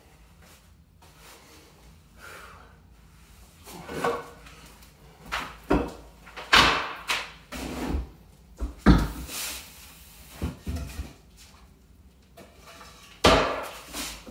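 Irregular wooden knocks, clunks and short scrapes as a steel pry bar levers a cast iron radiator and the boards of its wooden dolly. A few louder clunks fall in the middle and one near the end.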